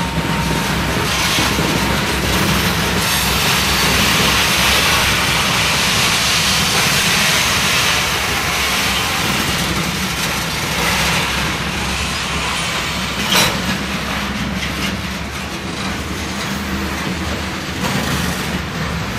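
Loaded freight hopper cars rolling past, a steady rumble and hiss of steel wheels on the rails. A single sharp bang about thirteen seconds in.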